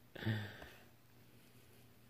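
A short, low vocal murmur, like a muttered "hmm", then near silence with a faint steady hum.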